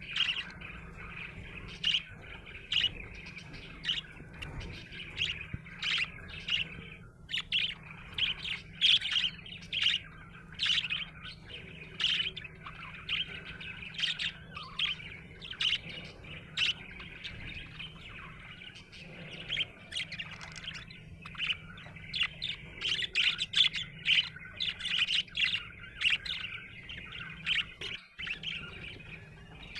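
Budgerigar chirping and chattering in a rapid run of short, high chirps that keeps going with only brief pauses. A steady low hum lies underneath.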